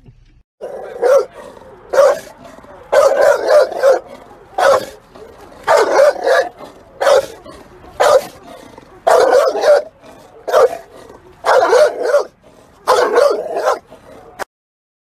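Pit bull-type dog barking repeatedly, about one bark or short run of barks a second, stopping abruptly near the end.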